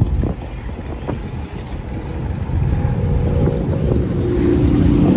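Car engine running nearby with a low, lumpy rumble, getting louder from about halfway through as it comes closer.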